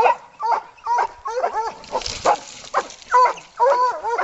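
Hunting dogs barking repeatedly in quick succession, about two or three barks a second, baying at a hog.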